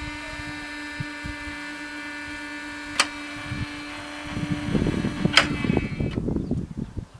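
Level crossing warning bells ringing steadily over a low motor hum as the barrier booms rise, with two sharp clacks about three and five and a half seconds in. The ringing and hum stop about six seconds in, once the barriers are up, leaving wind noise.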